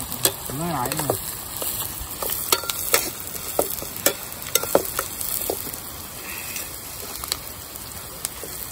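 Food frying and sizzling in a pan while a spatula stirs it, with a steady sizzle and irregular sharp clacks of the spatula against the pan.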